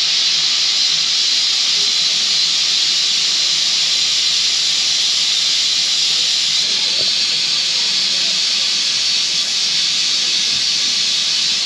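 Steam locomotive letting off steam: a loud, steady hiss of escaping steam with no chuffing rhythm.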